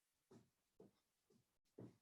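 Faint, even footfalls of someone running in place doing butt kickers, about two landings a second.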